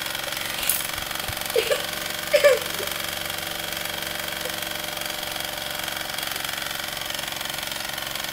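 Mamod TE1A toy steam traction engine running steadily, its small oscillating steam cylinder making a rapid, even chuffing. A few short, higher sounds break in between about one and two and a half seconds in.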